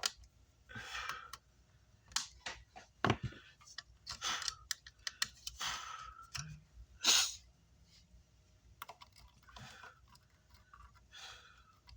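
Hand tools working on an amplifier circuit board: irregular light clicks and a few short scratchy scraping strokes.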